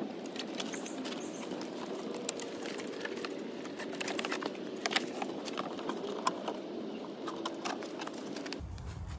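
Scattered short clicks and taps from plastic cable ties being fastened and handled on a wiring harness, over a steady low background noise.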